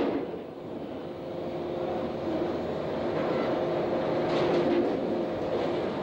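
Machinery of a tunnel boring machine running: a steady mechanical drone holding a couple of low steady tones, with a few light knocks about four seconds in.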